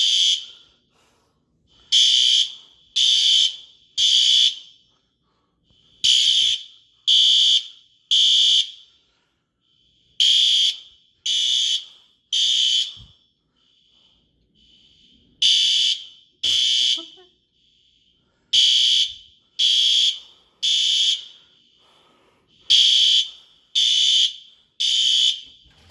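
Apartment building fire alarm sounding the Code 3 (temporal-three) evacuation signal: three high-pitched beeps about a second apart, then a short pause, repeating. A fainter alarm device elsewhere beeps out of step in some of the pauses.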